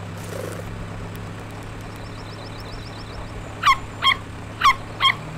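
A puppy barks four times in quick, short yaps, each dropping sharply in pitch, over the steady low hum of a jeep engine running. Faint high chirps of birds sit in the background.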